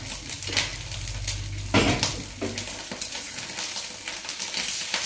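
Food sizzling in a hot pan while a utensil stirs it, with irregular scraping and clinking strokes against the pan.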